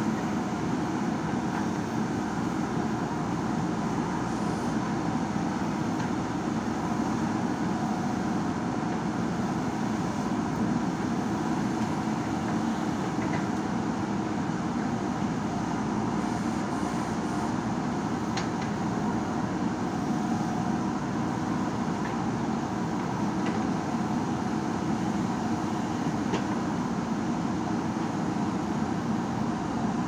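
JCB backhoe loader's diesel engine running steadily under load as the backhoe digs, with a few faint clicks over it.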